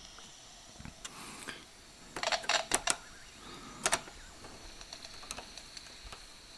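Kosmos kit reflex receiver with a crystal shortwave converter, just switched on: scattered faint clicks and crackles, then about two-thirds of the way through a faint steady high whistle sets in, the receiver starting to oscillate.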